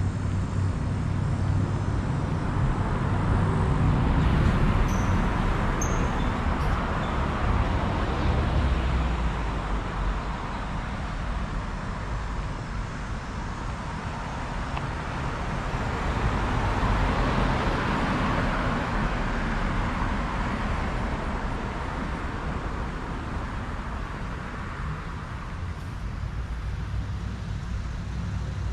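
Street traffic: cars passing with tyre and engine noise, swelling twice, about five seconds in and again around seventeen seconds, over a steady low rumble.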